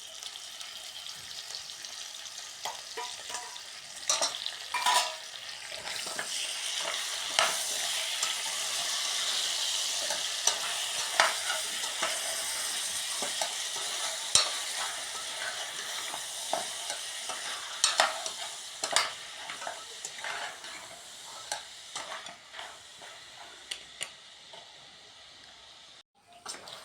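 Beef, onion and tomatoes sizzling in hot oil, with a cooking utensil clicking and scraping against the pan as they are stirred. The sizzle swells a few seconds in, eases later, and cuts off suddenly near the end.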